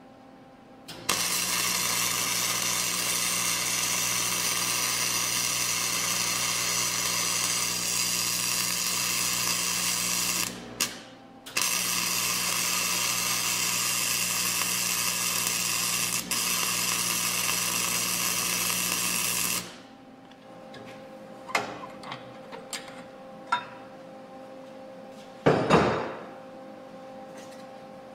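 Wire-feed welder running two long continuous beads on steel: a steady crackling buzz of about nine seconds, a short pause, then about eight seconds more. After the welding stops come scattered light clicks and one brief loud noise near the end.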